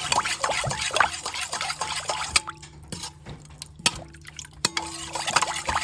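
Coconut-milk broth bubbling in a pot, small bubbles popping in quick succession, thinning out after about two seconds, with a few sharp clicks.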